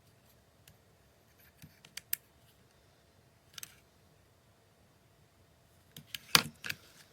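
A few sharp clicks and small knocks: two about two seconds in, one more a little later, and a louder clatter of several clicks near the end, like small hard objects being handled.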